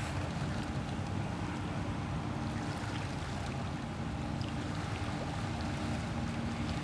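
Steady low rumble with a faint, even hum, heard across the water from the boat.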